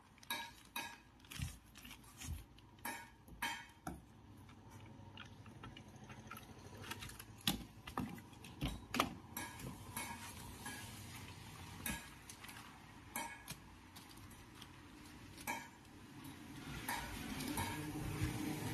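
Scattered light metallic clinks and taps of tools and metal parts being handled, irregular and roughly a second apart. A soft rustling noise builds near the end.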